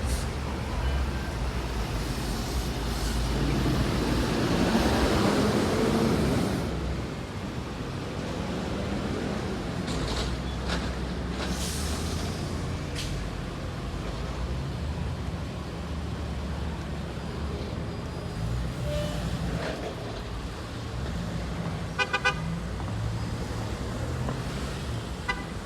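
Road traffic with a diesel city bus running, a steady low rumble; a louder rush of noise a few seconds in, and a brief double beep about 22 seconds in.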